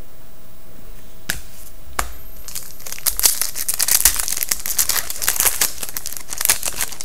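Foil wrapper of a 2011-12 SP Authentic hockey card pack being torn open and crinkled by hand. Two sharp clicks come first, then about four seconds of dense crinkling.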